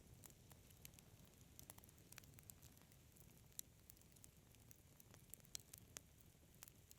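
Wood fire crackling softly: small irregular pops and snaps over a faint low rumble.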